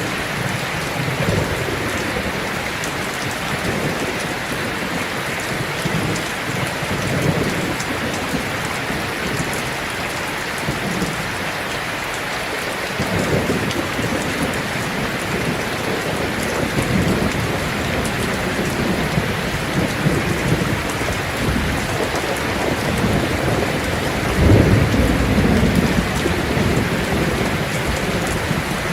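Heavy rain drumming on a tin roof, a steady dense patter, with low rolling rumbles of thunder coming and going; the loudest rumble comes late on.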